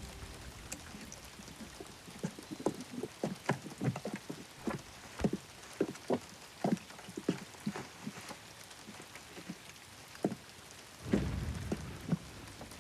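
Water drops falling and plinking at irregular intervals, a few a second, over a faint hiss. A short low rumble comes near the end.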